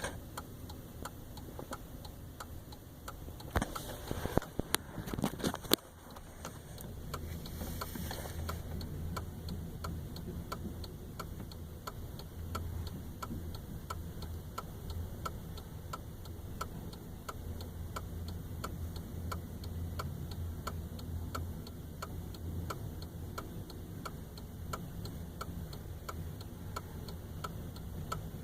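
Empty flatcars of a slow freight train rolling past over a steady low rumble, their wheels clicking over the rail joints about twice a second. There is some louder irregular clatter in the first few seconds.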